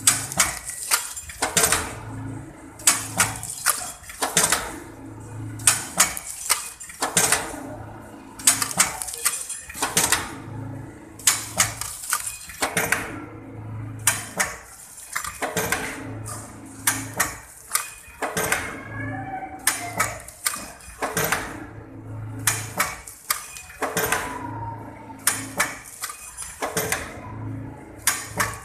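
High-speed pouch packing machine cycling steadily, with a burst of metallic clattering about every one and a half seconds as each filled pouch is sealed and drops. A short low hum rises with each cycle.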